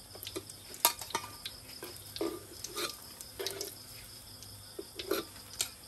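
Metal spatula knocking and scraping against a wok and a ceramic bowl in irregular clicks as fried Thai fish cakes are lifted out of the hot oil, over a faint steady sizzle of frying oil.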